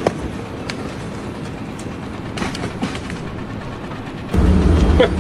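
Rattling machinery noise with scattered clanks. About four seconds in it gives way abruptly to a heavy engine running steadily and louder, the diesel of a loader.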